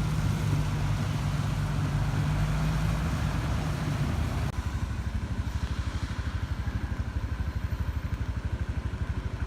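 Motor vehicle engines running: a steady engine hum, then after a sudden change about four and a half seconds in, a low, fast-pulsing engine rumble.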